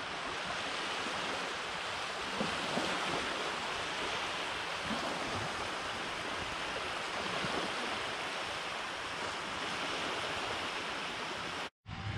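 Small waves lapping and washing over sand at the water's edge, a steady hiss of shallow surf.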